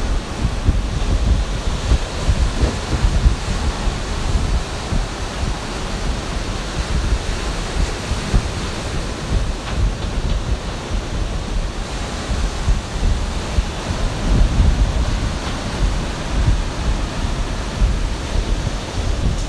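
Ocean surf washing steadily, with wind blowing across the microphone.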